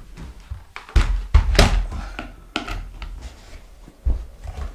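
A few dull thumps and knocks, about five over four seconds, from handling as a battery charger's mains plug is put into a wall socket and switched on.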